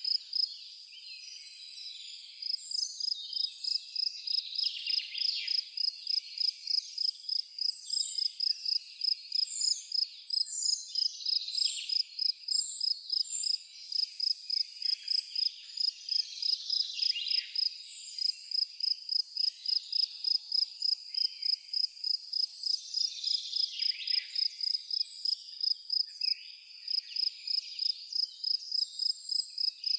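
A cricket chirping in a steady rhythm, about three high chirps a second, pausing briefly near the start, with birds calling and chirping now and then above it.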